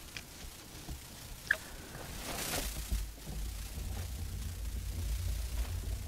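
Caulk gun in use while running a bead of caulk: a few light clicks and a short squeak about a second and a half in, then a low rumble from about two seconds in.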